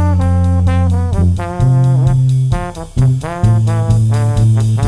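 Brass band playing a tune: sousaphone holding a low bass line under trumpets, trombone and saxophones, with horn notes sliding into and off pitch, over a steady drum-kit beat.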